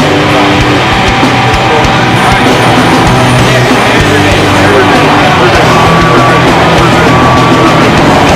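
Loud heavy rock music playing steadily.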